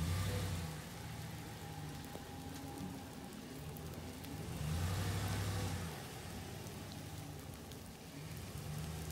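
Ram 1500 Rebel pickup's 5.7-litre Hemi V8 pulling the truck through soft sand and mud, its engine swelling louder twice: briefly at the start and for about a second some five seconds in. A steady hiss runs underneath.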